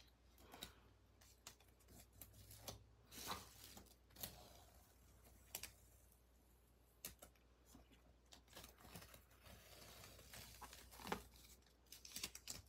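Faint, scattered crackles and ticks of washi tape being peeled off a paper pad.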